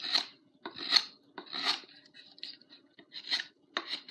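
Forged tomahawk blade whittling a 2x4, each short stroke scraping off a long wood shaving. The strokes come a little faster than one a second.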